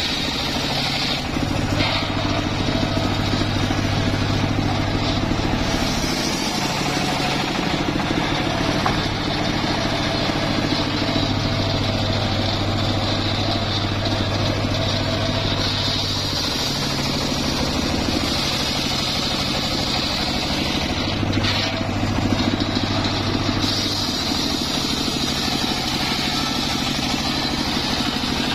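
Homemade engine-driven circular sawmill running and ripping through a mahogany log. A steady engine hum under the hiss of the blade in the wood, its pitch shifting every several seconds as the cut loads and eases.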